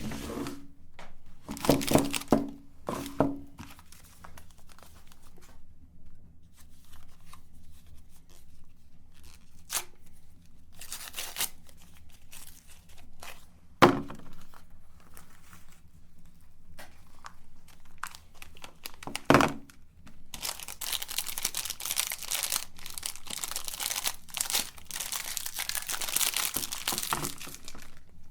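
Crinkling and tearing, with a few sharp knocks, then a continuous crackling, crunching noise for the last several seconds, typical of soap bars being unwrapped, handled and fed into a meat grinder.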